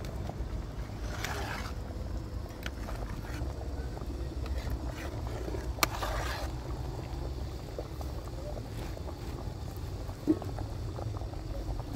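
Outdoor cooking over an open wood fire: a steady low rumble under a stew pot being stirred by hand, with a few faint clicks and a sharp crack about six seconds in.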